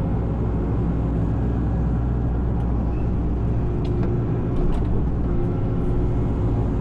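Excavator diesel engine running steadily under working revs as the hydraulic tree shear is moved, with a few faint clicks about four to five seconds in.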